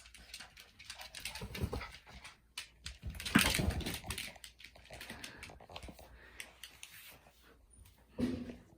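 Two poodles scuffling over a ball: a run of small clicks and scrapes, with a louder burst of scuffling about three and a half seconds in and short low dog noises at the start and near the end.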